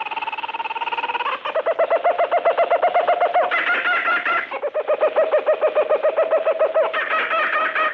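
Animal chattering sound effect: quick, pitched chatter pulsing about eight times a second, in several runs that jump to a new pitch every second or two.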